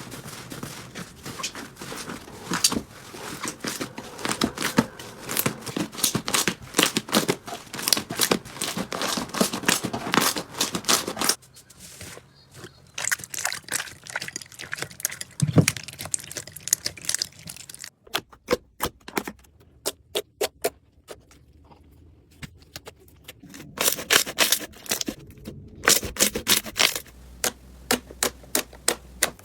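Slime being handled up close, giving rapid crackling and popping clicks. The clicks are dense for the first ten seconds or so, then come in shorter, sparser runs.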